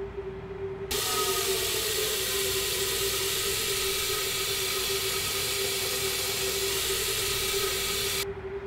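Kitchen tap water pouring into a stainless steel kettle. The tap is turned on about a second in and shut off near the end, and the pitch of the water in the kettle rises just after it starts. A steady hum sounds underneath.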